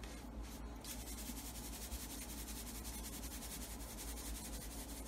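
Quiet room tone: a steady low electrical hum under a faint even hiss, with no distinct sounds.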